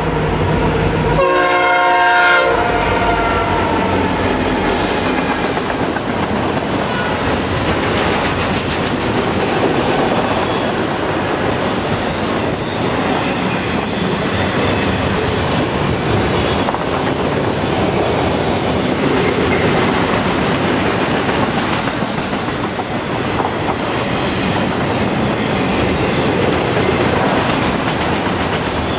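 A CN freight train passing. A diesel locomotive horn sounds a chord that cuts off about two seconds in, then the locomotives and a long string of freight cars roll by with a steady rumble and the clatter of wheels on the rails.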